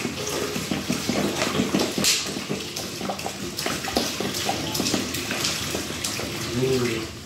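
Carbonated mineral water glugging out of a bottle and splashing into a urinal bowl in an unsteady stream.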